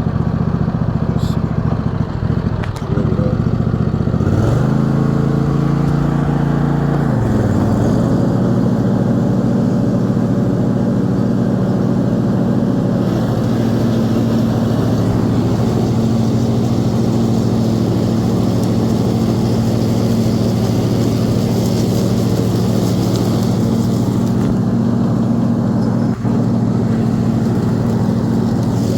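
Small gasoline engine running steadily, revving up about five seconds in, holding the higher speed for a few seconds, then dropping back to a steady speed.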